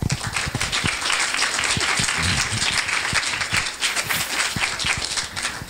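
Audience applauding: many hands clapping at once in a dense, even patter. It starts abruptly and thins out near the end.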